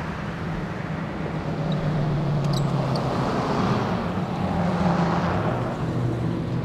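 A road vehicle driving past on the adjacent street, its engine hum and tyre noise growing louder to a peak about halfway through and then fading.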